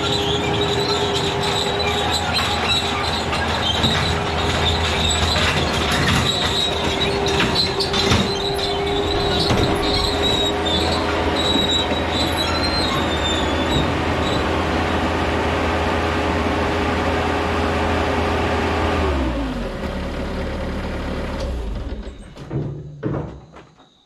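Bobcat S185 skid steer's Kubota diesel running at working throttle, with a steady whine and the clanking of its steel over-the-tire tracks as it drives. Near the end the whine drops in pitch as the engine is throttled down, and shortly after the machine falls quiet.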